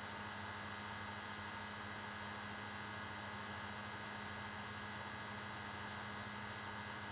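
Steady electrical mains hum with faint hiss underneath: the room tone of the recording, unchanging throughout.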